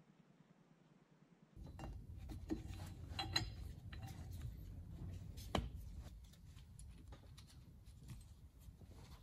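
Tow bar electrical socket being fitted onto its bracket: scattered clicks, taps and clinks of plastic and metal parts being handled, over a low steady rumble. The first second and a half is nearly silent.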